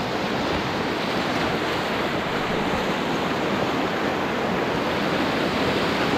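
River rapids rushing around a tandem whitewater canoe as it runs through them: a steady, loud wash of water.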